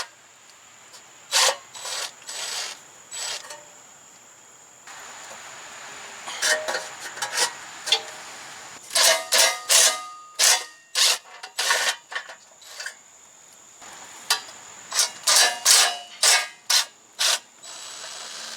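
Short rasping, clicking strokes of a hand tool working out the soaked Phillips screws on an ATV's rear brake cover, coming in quick clusters. A steady hiss comes in underneath about five seconds in.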